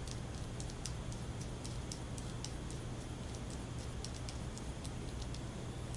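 Faint, irregular small clicks and ticks of hands working a felted cuff and its two-piece screw-on plastic toggle closure, with a steady low hum underneath.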